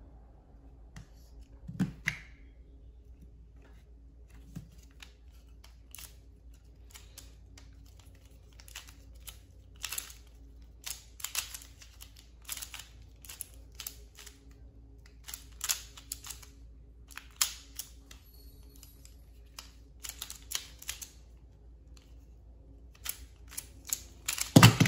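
A Qiyi MS pyraminx being turned fast during a speedsolve, giving a run of quick plastic clicks and clacks. It ends just before the close with a loud slap of the hands on the Speedstacks timer pads to stop it.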